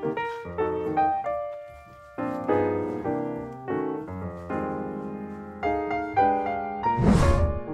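Piano music playing chords that change every half second or so. About seven seconds in, a short, loud, rough noise cuts across it.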